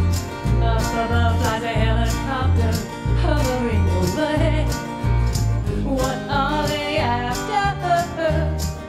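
Live acoustic band: a woman singing over strummed acoustic guitar and plucked upright bass, the bass notes falling on a steady beat.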